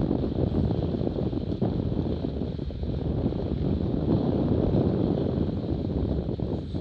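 Wind buffeting the microphone over the steady rush of a Cirrus F18 catamaran's hull slicing through choppy water at speed, throwing spray.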